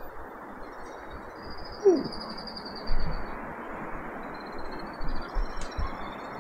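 Steady rushing noise of wind and open air at the top of a tower, with a short falling bird call about two seconds in and a few knocks.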